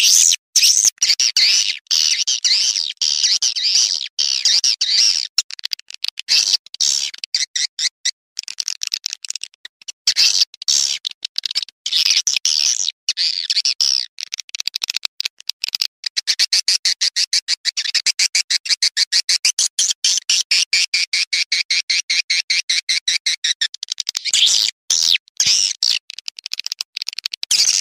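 Edited recording of swiftlet calls used as a lure for swiftlet nesting houses: high-pitched, rapid twittering chatter broken by short gaps. About two-thirds of the way in it turns to a fast, evenly repeated, lower chirping for several seconds, then the chatter returns near the end.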